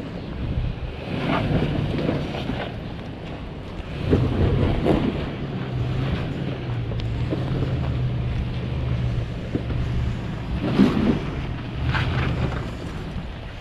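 Toyota Sequoia's engine pulling at low speed under load as it crawls over rocks, its note rising about four seconds in, with a few sharp knocks and crunches of tyres on rock and wind buffeting the microphone.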